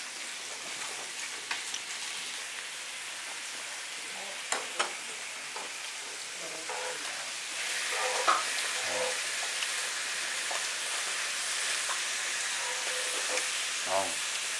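Raw sliced duck sizzling on a hot tabletop grill pan as tongs turn it, a steady frying hiss that grows louder about halfway through. A few light clicks sound about four and a half seconds in.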